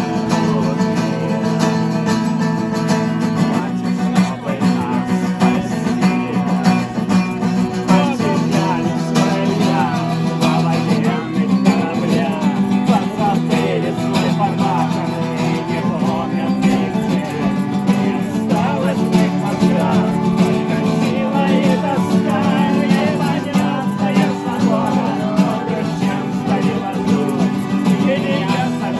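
Acoustic guitar music, played steadily throughout.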